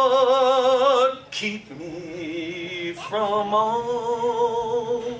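A man singing a slow solo song with strong vibrato, holding long notes. He breaks off briefly about a second in and again around three seconds in, then starts each new phrase.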